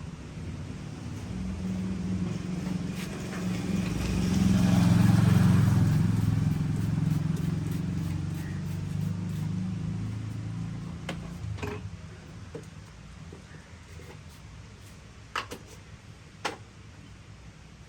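A road vehicle's engine rumble passing by: it swells to a peak about five seconds in, then slowly fades away. Two sharp clicks follow near the end.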